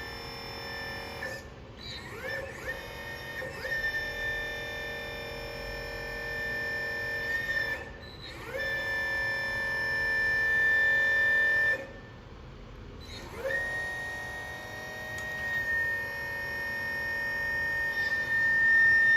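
Hydraulic pump motor of a 1/12-scale RC excavator whining steadily at one high pitch. It spins up with a quick rising whine, holds for several seconds and cuts off, three times.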